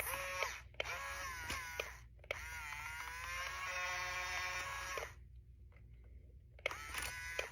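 Small electric motors of a remote-control toy excavator whining as it drives, turns and scoops. The whine runs in four separate bursts with short quiet gaps, the longest about three seconds in the middle, its pitch dipping briefly as some bursts start.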